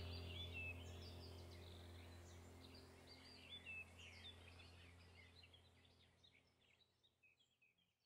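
Faint birdsong, many short chirps and twitters, over a low steady drone, all fading out gradually toward the end.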